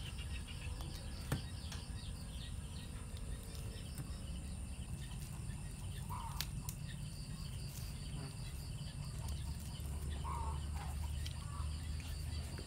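Steady high-pitched chirring of night insects over a constant low rumble, with a single sharp click about a second in and a few faint short chirps later.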